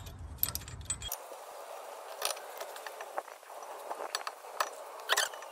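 Scattered metallic clicks and clinks of a hex-bit hand tool turning a rear brake caliper guide bolt.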